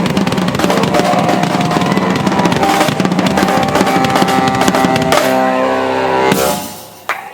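Live rock band playing the song's closing flourish: fast, dense drumming over the full band, then a held final chord about five seconds in and a last loud crash about six seconds in that rings out and fades near the end.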